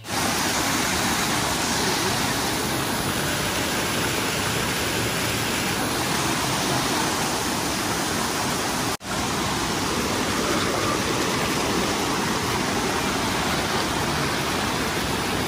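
Hot spring water pouring and rushing through natural rock pools, a steady full rush with a momentary break about nine seconds in.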